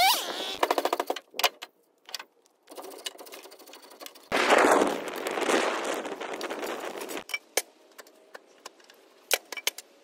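A wood fire crackling, with sharp pops and snaps scattered through it and a louder rushing stretch about halfway.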